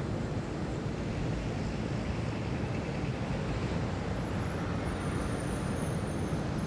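City ambience at dawn: a steady rumble of distant traffic, with faint high-pitched tones from about four seconds in.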